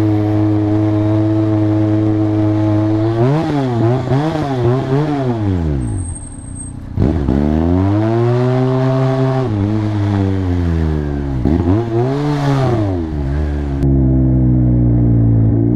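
Motorcycle engine running, its revs steady at first, then rising and falling several times, with a brief drop to low revs about six seconds in.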